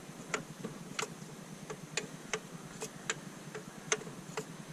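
Faint ticks or clicks, about three a second, at slightly uneven spacing.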